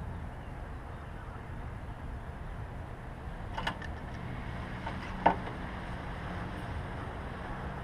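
Car jack being cranked by hand to raise the car. There is a steady low rumble, with two short metallic clicks about three and a half and five seconds in; the second is louder.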